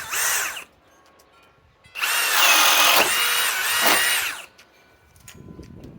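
Cordless RIDGID high torque hammer drill boring into wood with a 1½-inch Speed Demon bit: a short burst of the trigger, a pause, then a run of about two and a half seconds that stops about four and a half seconds in.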